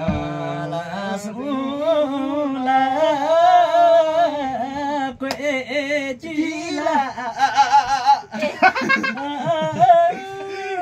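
A man singing a Karmarong folk song, holding long notes that waver in pitch.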